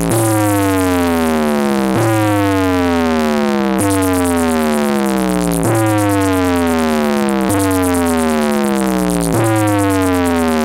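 Electronic dance track: a falling synth sweep repeats about every two seconds over a steady bass note.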